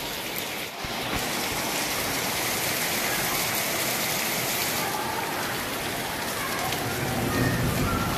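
Heavy rain falling steadily on a tiled rooftop terrace and its walls, an even hiss that gets a little louder about a second in.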